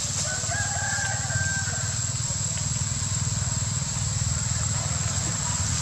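A rooster crowing once, a call of about a second and a half just after the start, over a steady low rumble and a constant high-pitched whine.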